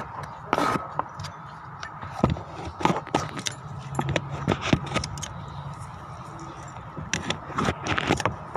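Irregular metallic clicks, clinks and scrapes of tools and parts being handled during engine work, over a steady low hum.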